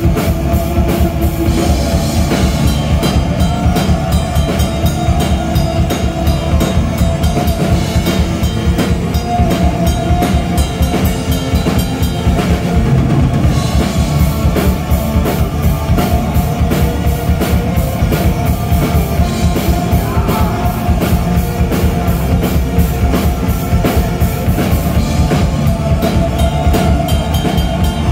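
Black metal band playing live, loud: distorted electric guitars over rapid, driving drumming on a full drum kit.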